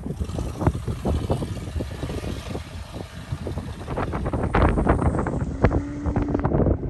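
Storm wind gusting and buffeting the microphone in a run of irregular low thumps, over the noise of car traffic at the intersection. A steady low hum comes in about five and a half seconds in.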